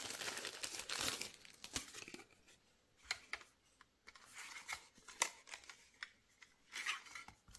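Plastic packaging crinkling for about the first two seconds, then scattered light clicks and taps as hard plastic phone cases are handled and set down on the table.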